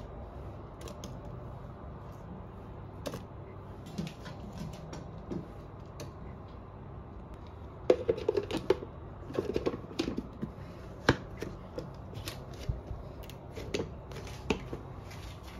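Kitchen handling as a blender is loaded with chopped vegetables and chicken: scattered light clicks and knocks, with a busier run of clatter about eight to ten seconds in, over a low steady hum.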